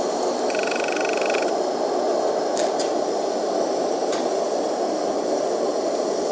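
Small homemade blast furnace fired by MAPP gas, running with the steady rushing noise of its burner flame. A brief high two-note whine sounds about half a second in, and there are a few faint clicks.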